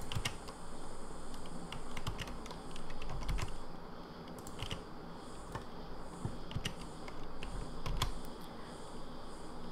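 Computer keyboard and mouse clicking: scattered, irregular clicks, a few a second, as keys are pressed.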